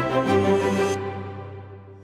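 Background music: held notes whose treble cuts out about a second in, then fading away toward the end.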